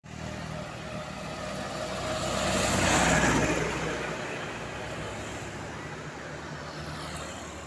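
An engine running steadily, with a louder rushing swell that builds and peaks about three seconds in, then fades.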